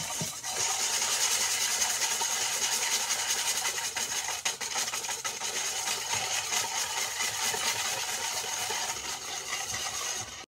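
Wire whisk beating butter and sugar in a stainless steel bowl: a steady, fast scraping of the wires against the metal as the sugar is worked into the butter to dissolve it.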